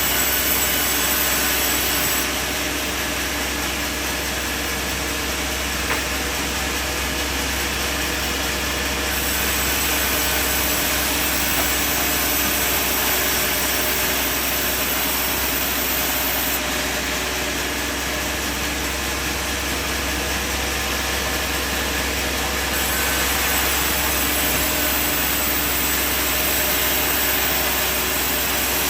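Sawmill machinery running steadily: a continuous low mechanical hum with hiss, its high end changing a few times.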